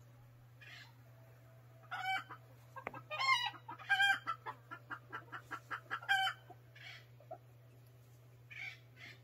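Chicken clucking and squawking: a few drawn-out squawks with a quick run of clucks, about six a second, in between. A steady low hum runs underneath.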